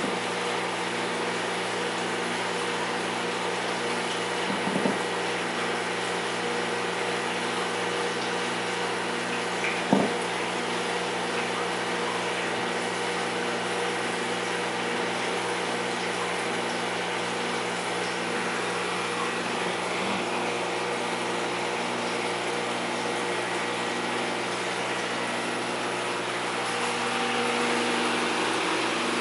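Aquarium wet/dry filter system running: a steady pump hum with the hiss of high-flow water circulating. A brief knock about ten seconds in.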